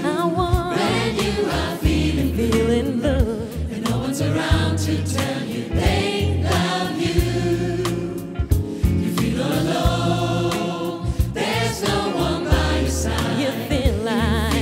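Gospel choir singing with vibrato over a band, with deep bass notes and drums.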